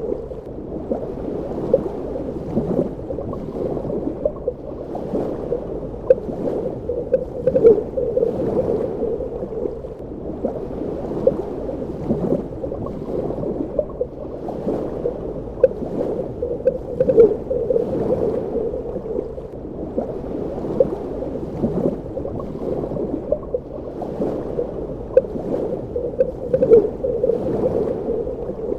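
Muffled underwater ambience: a steady, dull rush of water with frequent small irregular bubbling pops and gurgles.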